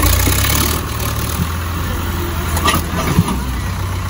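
Diesel tractor engines running steadily with a deep, loud rumble, with a couple of short knocks about three seconds in.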